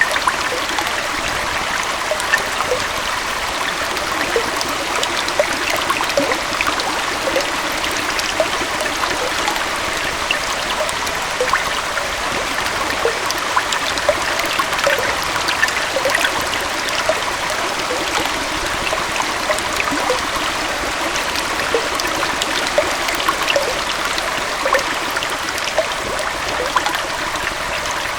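Gentle waterfall running steadily: a continuous rush of falling water with many small splashes and bubbling plops scattered throughout.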